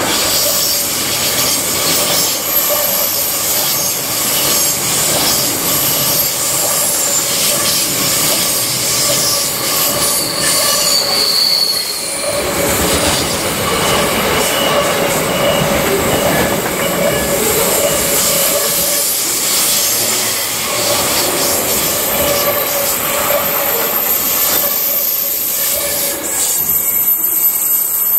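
Intermodal container freight wagons rolling past close by: a steady din of steel wheels on rail, with high, squealing tones from the wheels. The noise thins out near the end as the last wagon clears.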